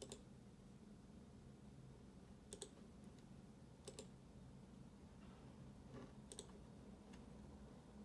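Computer mouse clicking four times, a couple of seconds apart, each click a quick pair of ticks as the button goes down and up, over quiet room tone.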